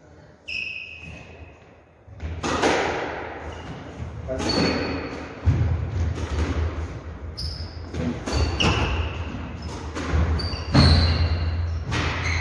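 Squash rally: the ball struck by rackets and thudding off the court walls every second or two, echoing, with short sneaker squeaks on the wooden floor between the shots.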